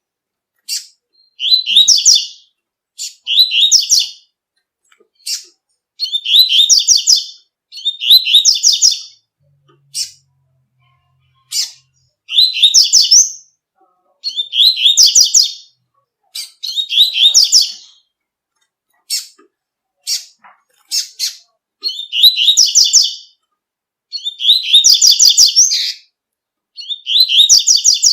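Double-collared seedeater (coleiro) singing the tui-tui song: high, bright twittering phrases about a second long, repeated every couple of seconds, with single sharp notes in between.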